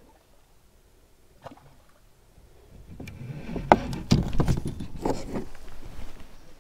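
Handling noise of a fishing rod in a plastic kayak's rod holder: after a couple of small clicks, a cluster of sharp knocks, clicks and scraping about three to five and a half seconds in as the rod is worked and lifted from the holder.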